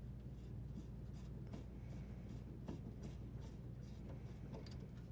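Faint scraping and scattered light clicks of channel-lock pliers working the water supply line elbow fitting loose from the dishwasher's inlet valve.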